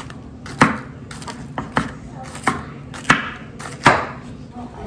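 Chef's knife chopping sliced bitter melon on a wooden cutting board: about seven sharp, uneven knocks of the blade striking the board.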